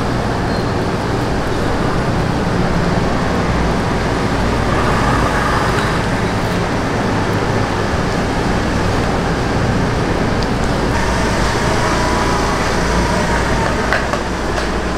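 Steady loud background rumble and hiss with a low hum.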